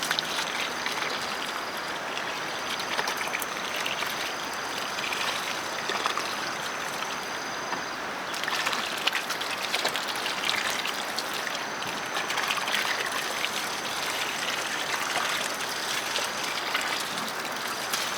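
Running water, a steady trickling flow, with a thin high whine that comes and goes over it.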